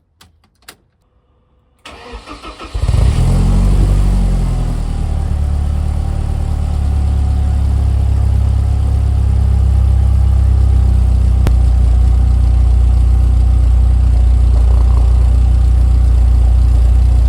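Car engine cold start: a few faint clicks, about a second of starter cranking, then the engine catches with a loud flare that falls away into a steady idle. A cold start the owner calls "a bit dramatic".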